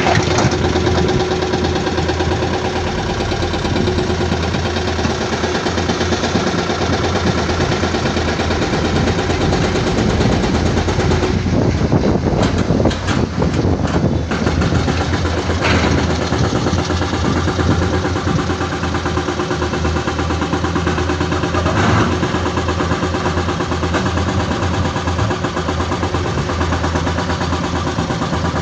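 Heavy diesel construction machinery running steadily with an even, low rumble. A burst of clatter comes about halfway through, and a couple of short knocks follow.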